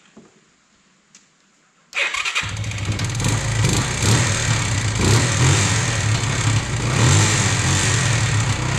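A Kawasaki Bayou 220 ATV's single-cylinder four-stroke engine starts on its electric starter about two seconds in, catching almost at once, then runs with the revs rising and falling a little. The electric start, rewired through a new neutral safety relay, now works.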